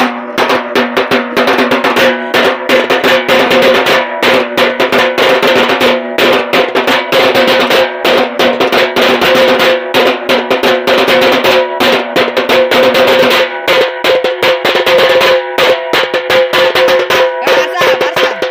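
Two stick-played drums with white plastic heads, beaten in a fast, dense rhythm with the heads ringing; the ringing thins out about two-thirds of the way through while the quick strokes carry on.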